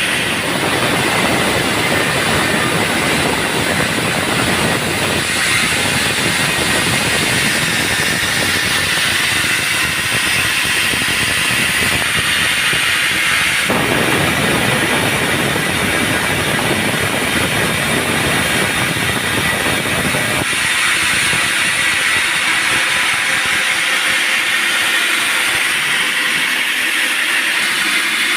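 Band sawmill running, its blade cutting through a teak log with a steady loud hiss and whine. The deeper part of the noise drops away briefly near the middle and again for the last several seconds.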